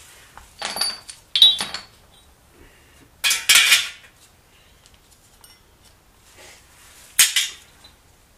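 Steel engine parts from a VQ35DE bottom end (bolts, rod caps) clinking and clattering as they are handled and set down, in several short bursts, the loudest about a second and a half in.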